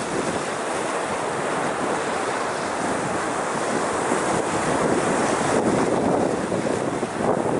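Small sea waves breaking and washing around rocks on a rocky shore, a continuous rushing surf that swells and eases, with wind buffeting the microphone.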